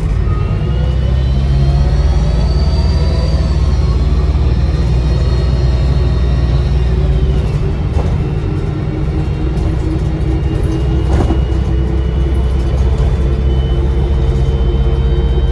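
A bus's diesel engine running under load, heard from inside the bus, with a high turbocharger whistle that rises and falls over it.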